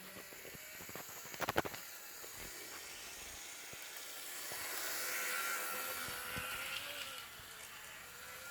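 Model BB 67001 locomotive running slowly along its track: a faint electric-motor whir with wheel hiss that swells towards the middle and fades again. A few light clicks about a second and a half in.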